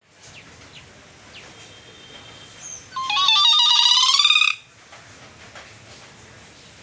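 Hill mynah giving one loud whistled call about three seconds in, lasting about a second and a half. It steps up and down in pitch, then warbles, much like a phone ringtone. Faint short chirps come before it.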